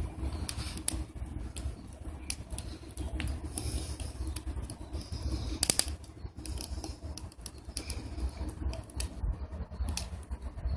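Wood fire burning in a sheet-metal rocket stove, crackling with irregular sharp snaps and pops over a steady low rumble. There is a louder cluster of snaps about halfway through.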